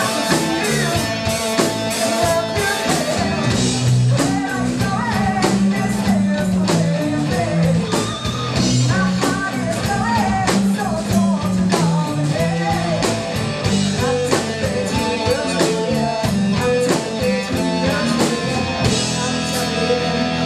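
Live alternative hard rock band playing: electric guitars through Marshall amps, bass and a Sonor drum kit driving a steady beat, with a female vocalist singing over them.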